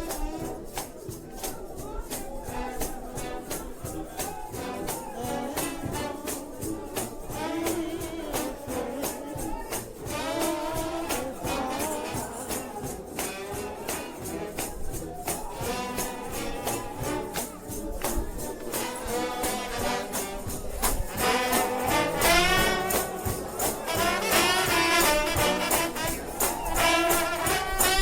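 Trombone shout band playing a fast 4/4 shout: brass melody over a steady beat with tambourine and cymbal striking on every beat. The music gets louder and fuller about two-thirds of the way in.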